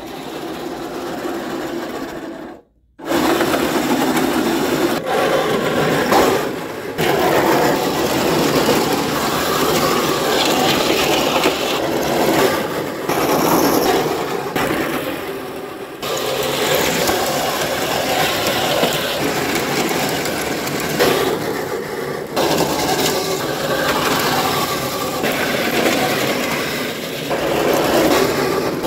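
A small electric tracked vehicle driving: its electric drive motors and gear transmission whine while its plastic Delrin tracks and sprockets clatter and grind over dirt and dry leaves. The sound breaks off briefly near three seconds and shifts abruptly at several points.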